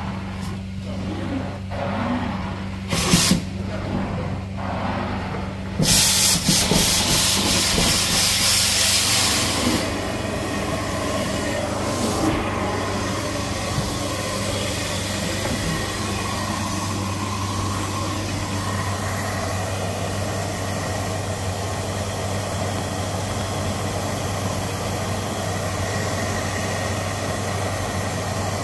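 Carpet-cleaning extraction machine running through its wand and vacuum hose: a steady hum under a rushing suction hiss. The hiss is loudest from about six to ten seconds in, with a couple of knocks around three seconds.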